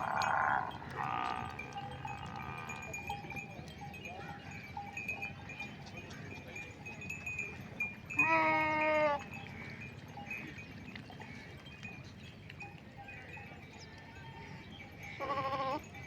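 Goats and sheep bleating. There are two quavering calls at the start, one loud wavering bleat about eight seconds in, and another near the end, over a faint steady high tone.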